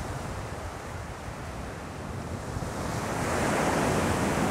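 Ocean surf breaking on a beach: a steady wash of waves that swells louder about three seconds in.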